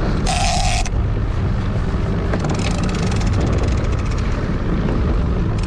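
Boat's outboard motor running steadily, with a Shimano Tiagra 50 Wide overhead game reel being wound against a hooked tuna, its mechanism giving a fast fine clicking through the middle seconds. A short hiss comes about half a second in.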